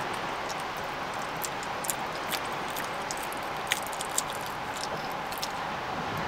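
A small white dog smacking and licking its lips, a scatter of faint wet clicks, over a steady hiss.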